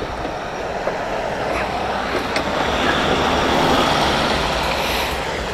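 Motor vehicle noise: a steady rush of engine and road sound with a low rumble underneath, swelling about three to four seconds in and easing off near the end.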